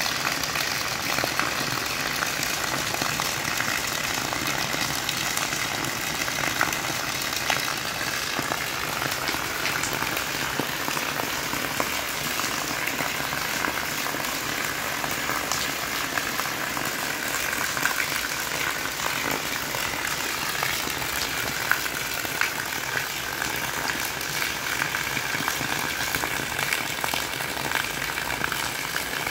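Steady rain falling on dirt and gravel at night, a continuous hiss full of small drop ticks, with water splashing into a puddle.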